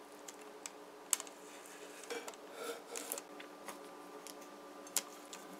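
Faint clicks and scrapes of a metal chef's knife cutting a slice of chocolate flan cake and a metal spoon lifting it, the utensils tapping the plate, with two sharper clicks, about a second in and near the end.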